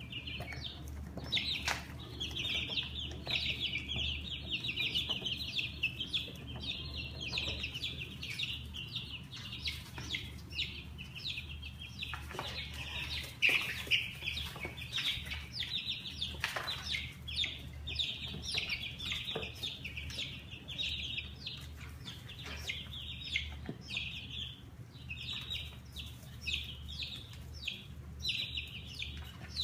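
A flock of baby chicks peeping continuously, many short, high peeps overlapping, with a few sharp clicks in the middle.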